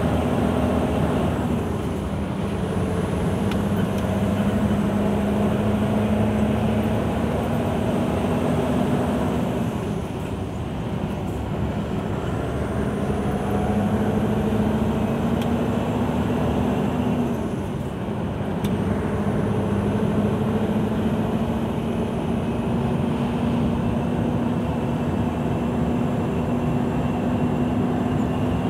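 Scania 164L 580's 16-litre V8 diesel running, heard from inside the cab on a descent. Its pitch steps down about a second and a half in and again about two-thirds of the way through, and climbs slowly in between.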